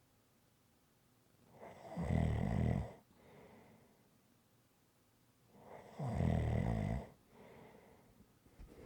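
A person snoring: two loud snores about four seconds apart, each followed by a softer breath.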